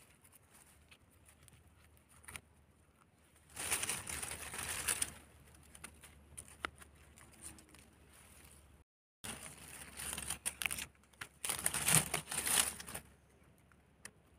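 Dry leaf litter rustling and crackling as hands work through it, in two stretches: about four seconds in, and again from about ten to thirteen seconds in. The sound cuts out completely for a moment just before nine seconds.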